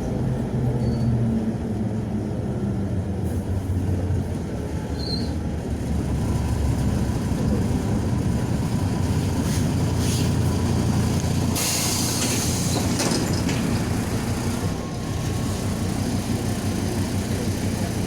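Cabin ride noise of a MAZ 105.065 articulated city bus: a steady low rumble of engine and road. About eleven seconds in, a short burst of compressed-air hiss.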